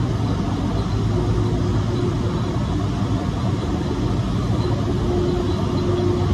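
Large industrial roller machine with motors and gear drives running in a mill: a steady, loud machine drone with a constant low hum and a fainter tone that comes and goes.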